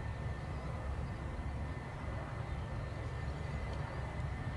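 Airbus A320 jet airliner rolling out on the runway after landing, its engines giving a steady low rumble with a faint thin whine above it.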